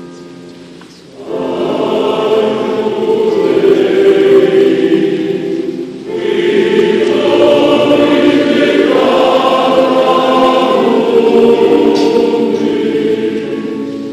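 Men's choir singing a hymn together, coming in about a second in as a held guitar chord dies away, with a brief break for breath about six seconds in before the singing carries on.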